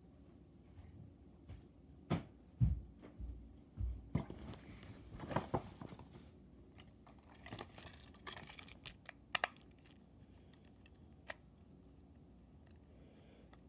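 Handling noises from a plastic motorized toy engine being picked up and turned over: a few knocks, then rustling and clicking, with two sharp clicks about two-thirds of the way through.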